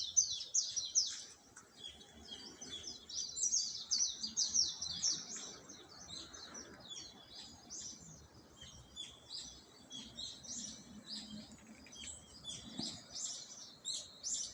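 A chorus of small songbirds chirping busily in the early morning, many short high chirps overlapping, thickest in the first second and again a few seconds in.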